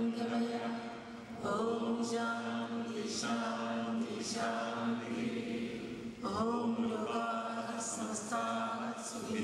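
A congregation chanting a mantra in unison, held on one steady pitch in long phrases with short breaks between them.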